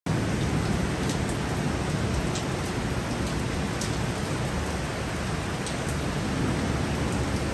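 Heavy driving rain falling steadily, a dense unbroken hiss, with a few sharper drops ticking close by now and then.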